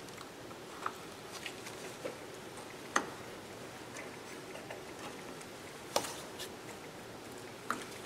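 Light clicks and taps of metal and plastic parts as an Espar coolant heater is handled and taken apart with gloved hands, with sharper clicks about a second, three seconds and six seconds in and near the end.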